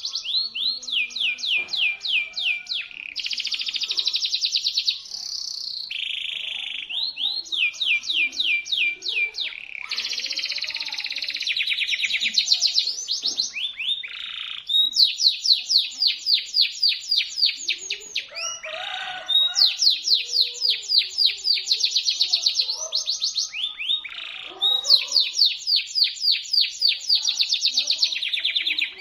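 Local domestic canary singing a shrill, sharp song of fast trills. Each phrase is a quick run of the same high note repeated many times a second, and a new trill follows every one to three seconds with hardly a break.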